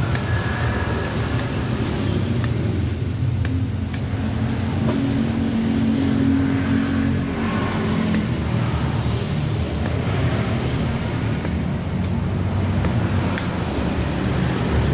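Steady road traffic rumble, with one vehicle's engine passing by about five seconds in. A few faint, sharp clicks sound here and there over it.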